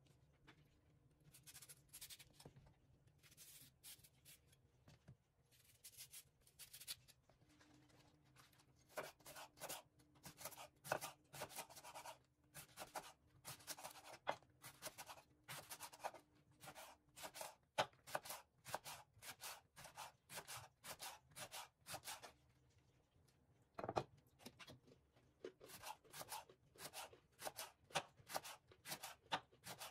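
Kitchen knife slicing leeks into thin rings on a wooden cutting board: a run of quick, crisp cuts, several a second, each ending in a light tap of the blade on the board. A pause of about two seconds comes near the end, broken by one louder knock.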